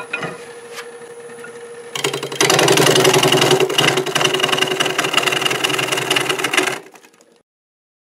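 Wood lathe spinning with a steady hum. About two seconds in, a carbide turning tool bites into the spinning knotty black locust blank: a loud, rough, continuous scraping and chattering that stops abruptly just before the end.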